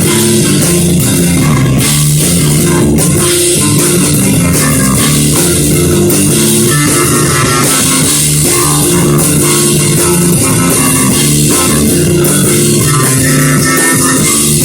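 Rock band playing live: electric guitar, bass guitar and drum kit, loud and continuous.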